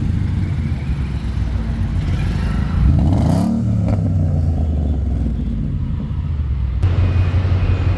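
Car engine running steadily with a low drone, with a brief rise and fall in engine pitch about three seconds in.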